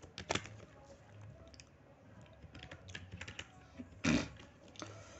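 Computer keyboard keys being typed, a few soft, scattered keystrokes with a small run of taps about three seconds in and one louder tap about four seconds in.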